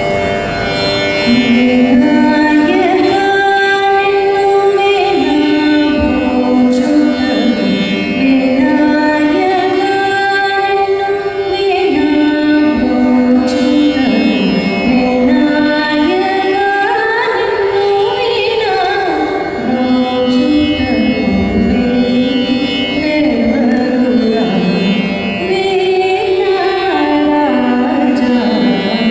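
A woman singing a slow devotional prayer solo into a microphone, holding long notes that slide up and down between pitches, over a steady drone.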